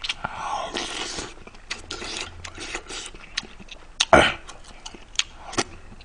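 Close-miked eating: a spoonful of seafood doenjang stew is slurped and chewed, with small clicks of a metal spoon. About four seconds in, the spoon gives a louder knock as it goes back into the stew pot.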